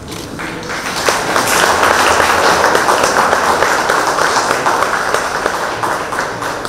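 Audience applauding, many hands clapping together; the applause swells over the first second or two and tapers off near the end.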